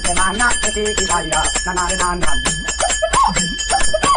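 A bell rung rapidly and without pause: a steady metallic ringing struck many times a second, with voices underneath.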